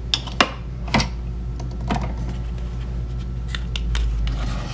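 Scattered plastic clicks and taps from handling a coffee pod and a single-serve pod coffee maker, about one every half second to a second, over a steady low hum.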